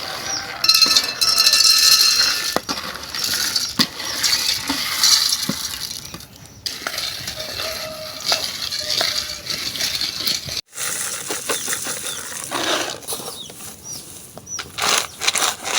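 Roasted groundnuts being moved about by hand or utensil, rattling and clinking against their container, with many small clicks.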